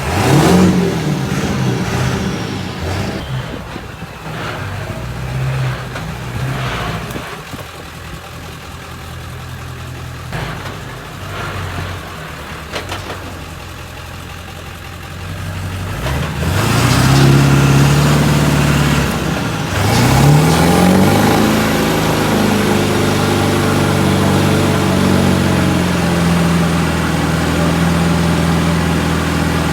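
7.3-litre Powerstroke V8 turbo diesel of a 2000 Ford F-350 revving: it rises sharply at the start, then goes up and down, climbs hard about sixteen seconds in, dips briefly, then is held at steady high revs for the last several seconds.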